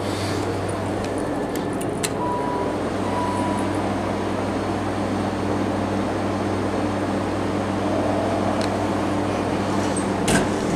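Steady low mechanical hum around a hydraulic elevator. About two seconds in come a click and two short beeps from the elevator's signals, and near the end a thump as the doors close.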